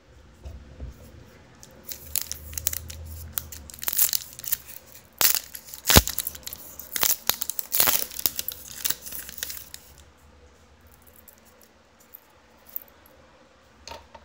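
A hobby pack of Panini Brilliance basketball cards being torn open, the wrapper tearing and crinkling in a run of sharp crackles from about two seconds in to about ten seconds in.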